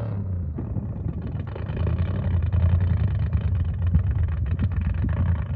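Dune-bashing car's engine running under load, a steady low drone that swells louder through the middle, with scattered brief knocks.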